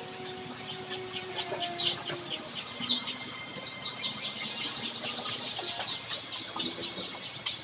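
Birds chirping: short, quickly falling chirps, a few at first and then a rapid run of them from about halfway through.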